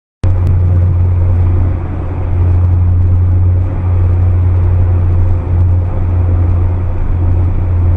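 Steady low rumble of a car driving, engine and road noise picked up by a dash cam inside the cabin.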